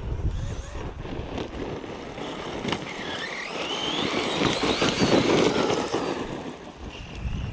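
Redcat Kaiju EXT RC truck driving fast over dirt: its electric motor whines, the pitch dipping and then climbing between about three and six seconds in, over the rumble of tyres on the ground. Wind buffets the microphone.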